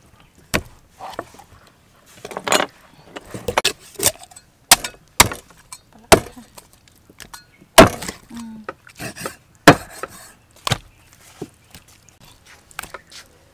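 Meat cleaver chopping a raw whole chicken on a round wooden chopping block: sharp chops at an uneven pace, with a few much harder blows in the second half.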